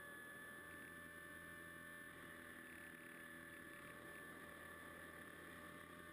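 Faint, steady whine of an FPV model plane's motor and propeller at constant cruise throttle, heard from on board, with a low rush of airflow beneath it.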